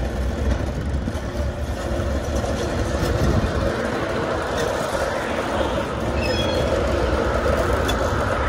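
B-class diesel-electric locomotive running steadily as it shunts wagons on the siding, with a continuous deep engine rumble.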